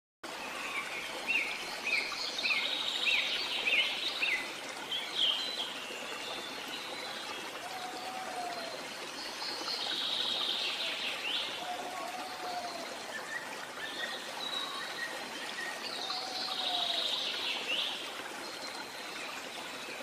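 Several songbirds singing over a steady trickling stream. There is a run of quick chirps in the first few seconds, high trills twice later on, and a low whistled note that repeats every few seconds.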